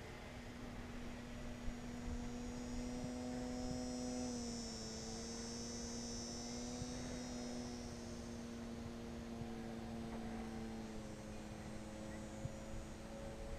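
Electric motor and propeller of a TechOne Air Titan RC plane humming steadily in flight. The pitch drops slightly about four and a half seconds in, and a thin high whine sits over it through the middle.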